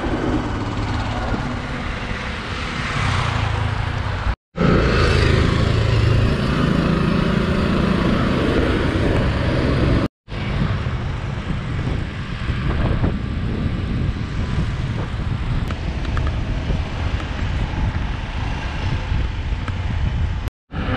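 Highway traffic passing, with motor scooters, cars and trucks, mixed with wind rumbling on the microphone as the bicycle rides along the road shoulder. The sound cuts out briefly three times.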